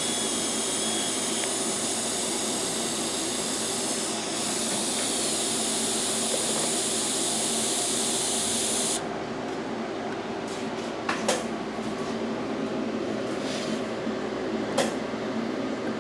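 Welding arc hissing steadily on roll-cage tubing, cutting off suddenly about nine seconds in, followed by a few sharp clicks.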